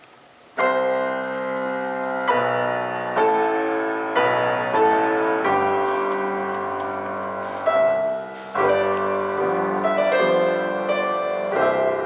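Piano playing slow, sustained chords that start about half a second in and change every second or two, with a brief break near eight seconds.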